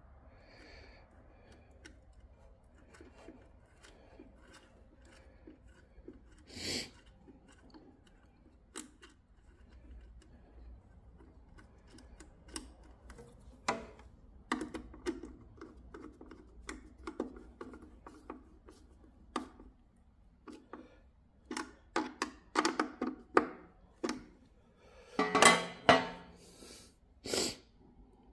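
Irregular clicks, clinks and rustling as insulated generator coil leads with metal ring terminals are handled and moved about inside a sheet-metal terminal box, busiest and loudest near the end.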